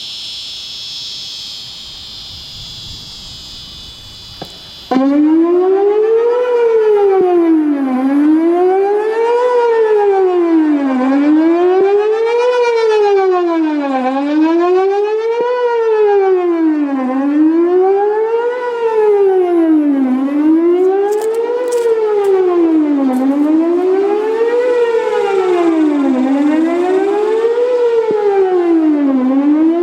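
Cicadas buzz for the first few seconds, then a Whelen WPS-4008 electronic tornado warning siren starts abruptly with a loud wail, its pitch rising and falling smoothly about every three seconds. The recordist reckons this worn siren has only about two of its drivers still working.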